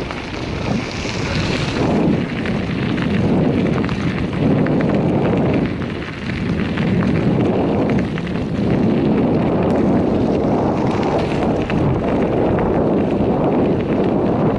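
Wind buffeting the microphone of a camera riding along on a bicycle, a loud rumbling noise that swells and eases every couple of seconds, with a light crackle of tyres on the gravel trail.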